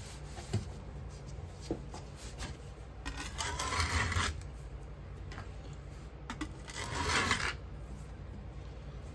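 Two rasping scrapes across packed Petrobond casting sand in a flask, the first about a second long and the second shorter, with a few light knocks in between.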